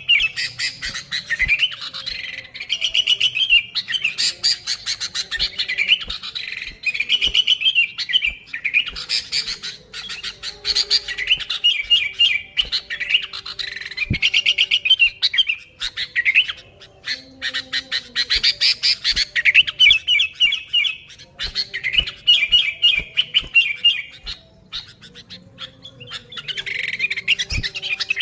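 Sooty-headed bulbul singing in an excited run, repeating quick chattering phrases of rapid bubbly notes every second or two.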